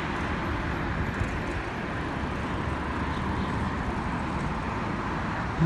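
Steady city street traffic noise: the running rumble of passing cars and other road vehicles.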